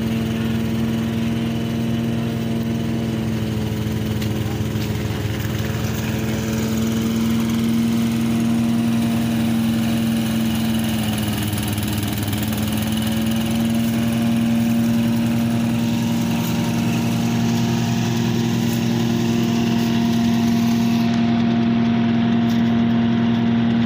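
Small engine of a portable rice thresher running steadily, its pitch sagging briefly about halfway through and then recovering.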